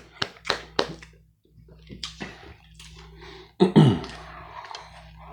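A person clapping their hands, about three claps a second, stopping a little under a second in. Then quieter rustling and mouth noises, with one brief loud vocal sound near the middle.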